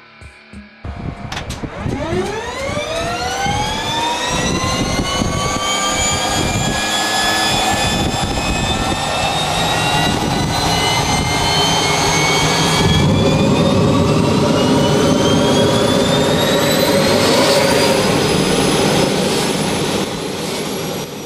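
Helicopter turbine engine spooling up on start: a whine that rises steeply about a second in, then keeps climbing slowly toward a high pitch, over a rumbling roar that grows fuller about two-thirds of the way through.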